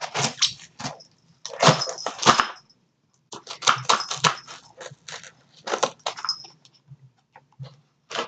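A cardboard box being pried and torn open by hand: an irregular run of short scraping, ripping noises, some with a thin squeak.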